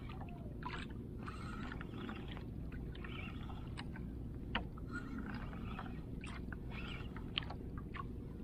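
Water slapping and splashing against the hull of a small outrigger boat over a steady low rumble, with a few sharp clicks, the clearest about halfway through and again near the end.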